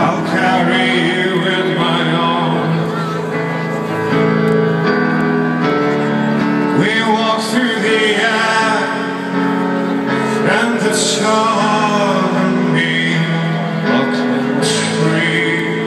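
Live rock band heard through a festival PA from within the crowd: a male voice singing over sustained chords.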